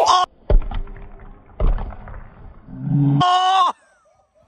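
Dull thuds of a football being kicked on artificial turf, then a man's long drawn-out shout that falls a little in pitch and cuts off suddenly near the end.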